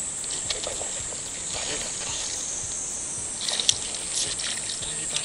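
Steady high-pitched drone of insects, with water splashing and sloshing as a hooked bass thrashes at the surface, and a sharp click about three and a half seconds in.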